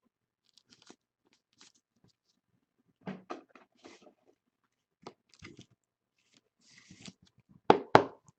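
Trading cards and their plastic packaging being handled: scattered soft clicks and rustles, a brief crinkling rustle, then two sharp knocks close together near the end.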